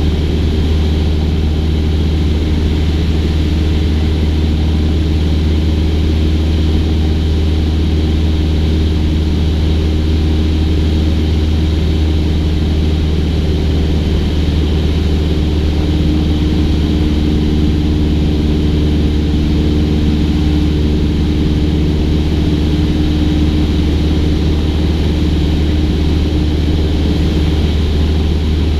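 Cessna 172's piston engine and propeller in flight, a loud steady low drone that holds an even pitch; a higher steady hum joins about halfway through.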